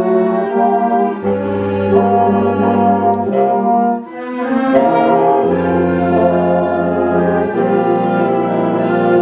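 Wind band playing held chords, with horns, trombones and saxophones to the fore and low bass notes coming and going. The sound drops briefly about four seconds in, then the band comes back in on a new chord.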